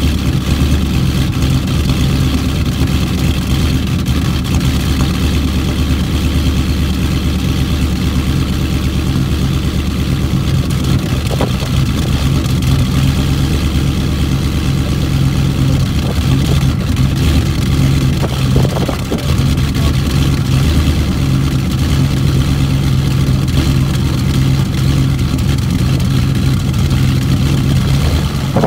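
Straight-piped Audi S4's 4.2-litre V8 exhaust running steadily at an unchanging engine speed.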